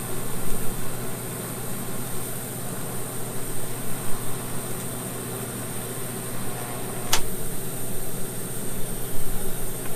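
Electric arc welding on a steel control-yoke tube: a steady hiss and hum from the arc and the welder, with one sharp click about seven seconds in.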